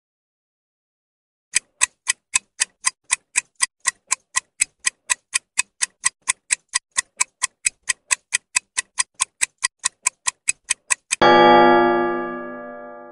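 Quiz countdown-timer sound effect: a fast, even clock ticking, about four ticks a second, followed near the end by a ringing chime that marks time up and dies away slowly.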